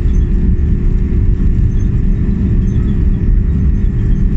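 Airbus A330 cabin noise while taxiing: a loud, steady low rumble of the engines and rolling gear heard through the fuselage, with a faint steady hum over it.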